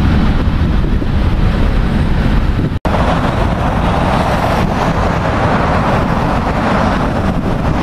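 Steady rumble of jet airliner engines around the airfield, mixed with wind buffeting the microphone. The sound cuts out for an instant about three seconds in, then carries on unchanged.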